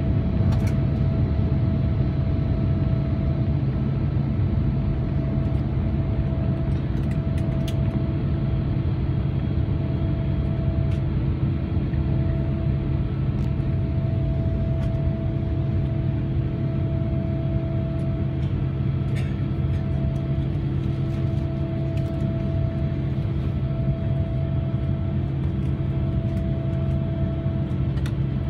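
Cabin noise inside a Boeing 787-9 climbing out after takeoff: the steady, deep rumble of its GEnx-1B turbofans and the airflow, with a wavering mid-pitched hum running through it.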